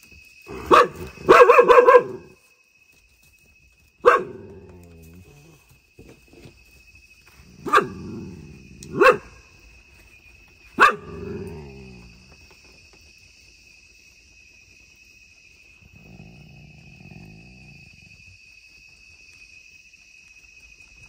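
A dog barking at night: a quick run of loud barks in the first two seconds, then single barks every two or three seconds until about eleven seconds in, and a quieter low growl a few seconds later. A steady high insect trill runs underneath.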